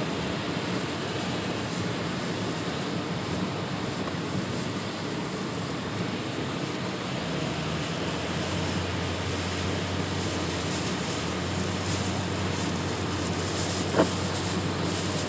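Heavy rain falling on a moving car and tyres hissing on a flooded highway, heard from inside the cabin as a steady noise. A low steady drone joins about halfway through, and there is one sharp knock near the end.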